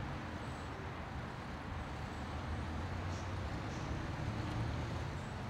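Steady low rumble of street traffic, with motor vehicles running.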